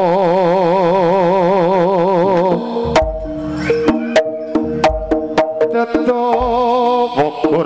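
Live Javanese jaranan gamelan music: a held melody note wavers up and down for about two and a half seconds, then drum strokes come in over a melody that moves in distinct steps.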